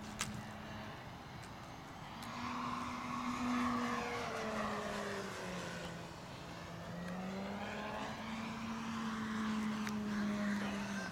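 Large radio-controlled aerobatic plane's motor and propeller droning as it flies manoeuvres. The note swells louder twice, sags in pitch midway, then climbs again. A short sharp click comes just after the start.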